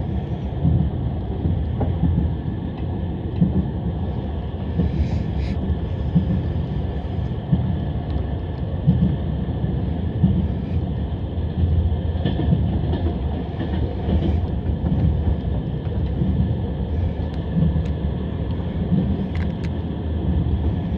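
Passenger train's wheels running on the rails, heard from inside the carriage: a steady, even rumble with no let-up.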